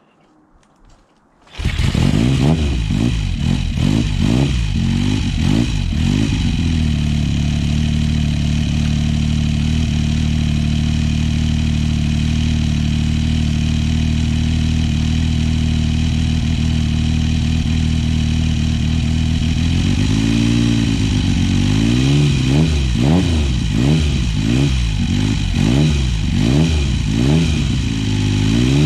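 Triumph Trident T150V's three-cylinder engine, breathing through a 3-into-1 exhaust, starts running about a second and a half in and is blipped a few times. It settles to a steady idle, then is revved repeatedly in quick blips near the end.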